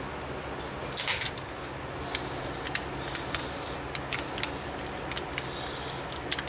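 Adhesive tape being picked and peeled off a laptop's LCD ribbon-cable connector by fingernails: irregular short crackles and clicks, the loudest cluster about a second in.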